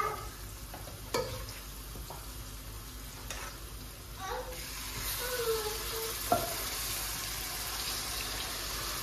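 Onions frying in oil in a pot, sizzling, with the ladle stirring; about four and a half seconds in the sizzle grows louder and hissier as cooked pepper sauce is ladled into the hot oil. Two sharp clacks of the ladle against the pans.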